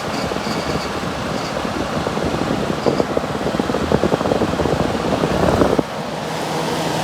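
Vintage 6,000 BTU Gibson Air Sweep window air conditioner running on fan only, loud, with a rushing, crackly air noise. About six seconds in the sound drops suddenly to a steadier, lower hum.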